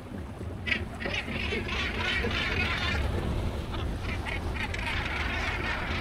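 A flock of seabirds calling over the sea, many short calls overlapping from about a second in, over a steady low rumble of boat and wind.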